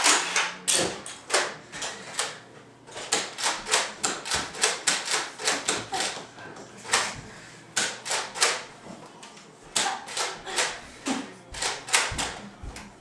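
Nerf foam-dart blasters being fired over and over: a long, irregular run of sharp plastic pops and clacks, often two to four a second, with short gaps.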